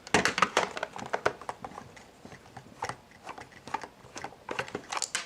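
A screwdriver backing a screw out of a plastic camcorder casing: a quick run of small clicks and ticks, sparser in the middle, with another cluster of clicks near the end.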